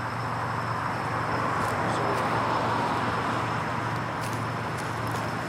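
Toyota Tacoma pickup's engine running steadily under load, getting a little louder about two seconds in, as it strains to pull a tree stump with little traction.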